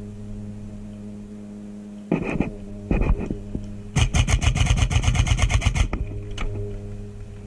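Airsoft electric gun firing a full-auto burst of about two seconds, roughly ten shots a second, after a couple of shorter noises. A steady low hum runs underneath.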